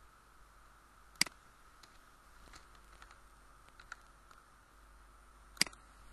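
Two sharp computer mouse clicks, one about a second in and one near the end, with a few soft keyboard key taps between them as a short word is typed. A faint steady hiss runs underneath.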